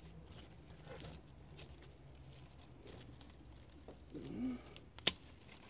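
Faint rustling and small handling noises over a low hum. A short murmur of a man's voice comes about four seconds in, and a single sharp click about a second later.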